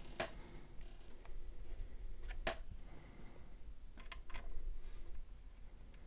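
Cable and plastic handling inside a PC case: four sharp clicks, the loudest about halfway through and two close together near the end, with light rustling between them, over a faint low hum.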